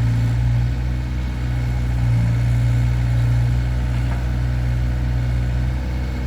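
Caterpillar E70B excavator's diesel engine running steadily at low throttle, a constant low drone with slight swells in level.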